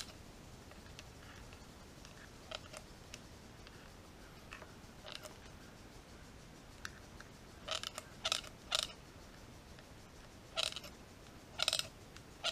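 Trigger-pump oil can being worked in short strokes, each a brief squirt with a creak. There are a few faint strokes, then three quick ones about half a second apart and two more a second apart near the end, as oil is pumped onto the oil pump's gears to pre-lube them before the front cover goes on.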